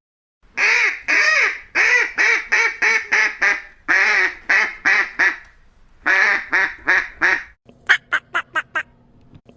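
Duck quacking loudly in runs of rapid, harsh quacks, several a second, with short pauses between the runs. Near the end a quicker series of shorter, sharper calls follows over a steady low hum.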